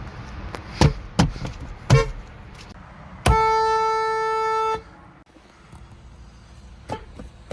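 Car horn: a few short taps, then one steady single-note honk of about a second and a half.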